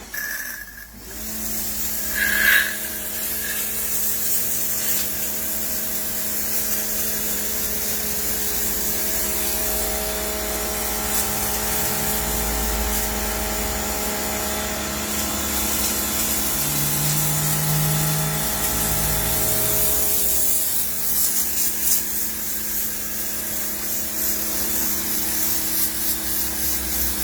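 PAXCESS electric pressure washer running: a steady motor and pump hum under the hiss of the water jet spraying.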